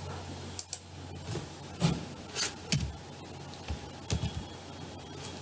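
Scattered, irregular clicks and taps from a computer keyboard and mouse, some with a dull low knock, over a steady low electrical hum.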